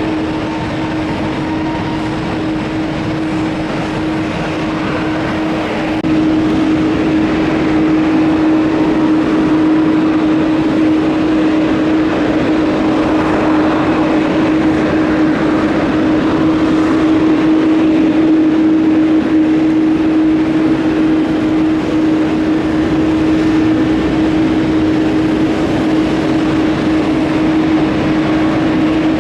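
Jet engines of a jetBlue Airbus A321neo (Pratt & Whitney geared turbofans) at take-off power: a loud, steady drone with a strong constant hum. It grows louder about six seconds in.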